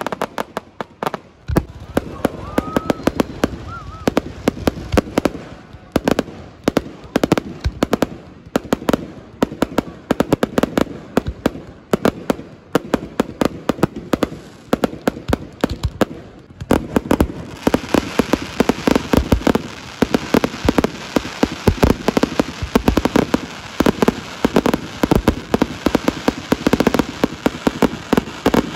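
Aerial fireworks bursting in a rapid, continuous barrage of bangs and crackles, growing denser and more crackling about two-thirds of the way through.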